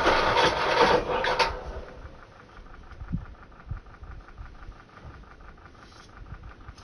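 Loud engine noise, likely from the Polaris Ranger 500 EFI, that stops about a second and a half in. Faint rapid ticking and a couple of dull thumps follow.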